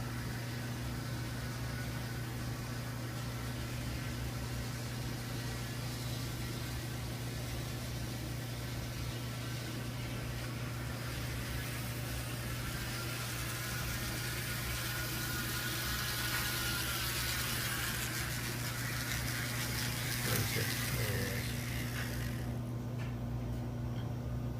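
HO-scale model train running on its track: a steady electric hum with a rolling wheel-on-rail hiss that grows louder through the middle and falls away sharply near the end.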